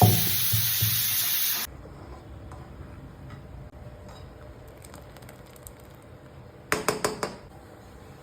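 Food sizzling loudly and steadily in a hot pan, with a thudding music beat under it, cut off abruptly under two seconds in. After that it is fairly quiet with faint clicks, then a quick run of four or five sharp clatters near the end.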